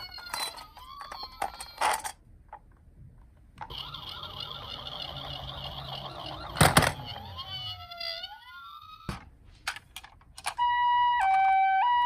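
Battery-powered toy ambulance sirens switched on one after another, with clicks of buttons and handling. First a wailing siren that rises and falls, then a buzzy electronic siren with a steady tone ending in a swoop, then, from about ten seconds in and louder, a two-tone hi-lo ambulance siren alternating about twice a second.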